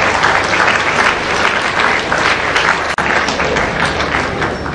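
Audience applauding: many hands clapping together, easing off near the end.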